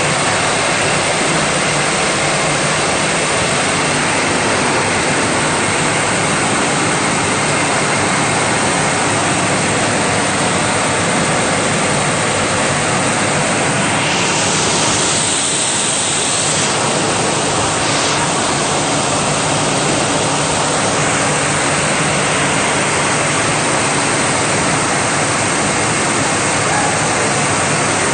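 Optical colour sorter running on parboiled rice: a steady, loud rushing noise from the machine. About halfway through, a sharper hiss rises over it for about three seconds, and a brief one follows.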